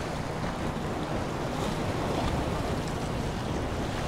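Waves washing against the jetty rocks, a steady rush of surf.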